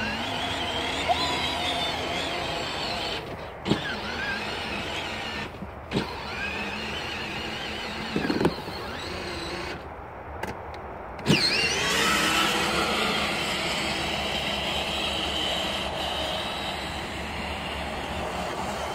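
Electric drive motors and gearbox of a battery-powered ride-on toy Jeep whining as it drives over grass, the pitch wavering. A few knocks, and about eleven seconds in the whine rises quickly and holds louder.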